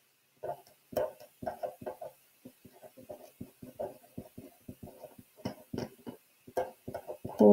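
Felt-tip marker writing on paper: a quick, irregular run of short strokes, several a second, as letters are written.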